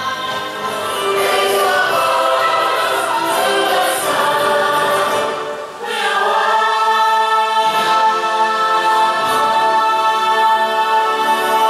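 Choral music from a nighttime water show's soundtrack: a choir singing long held notes. About six seconds in the music dips briefly, then the voices swell back with sustained chords.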